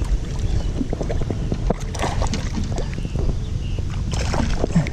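Steady low wind rumble on the microphone, with a few light clicks and knocks scattered through it.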